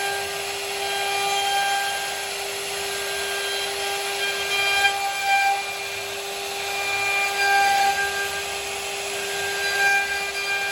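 CNC router spindle running with a steady high whine while a V-bit cuts into wood, the cutting noise swelling and easing as the bit moves along its path.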